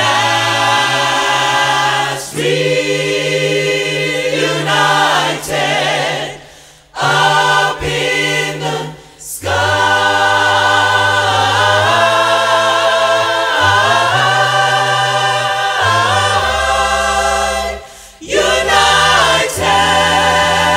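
Gospel choir singing unaccompanied in close harmony, with bright upper voices over held low bass notes. The singing breaks off briefly between phrases three times.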